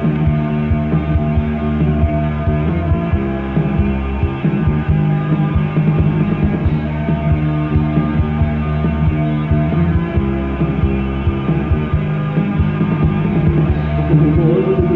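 Goth rock band playing an instrumental stretch of a song: a steady drum beat under bass and guitar, with the singing coming back in near the end.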